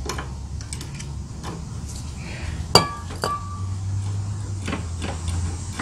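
Light metallic taps and clicks of a screwdriver and hand working at a lawnmower carburetor, with two sharp ringing clinks of metal on metal about three seconds in, over a steady low hum.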